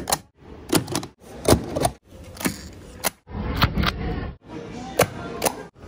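Self-inking stamps pressed down onto passport pages, a sharp clack with each press, about seven in all at uneven spacing. The background noise changes abruptly several times between presses.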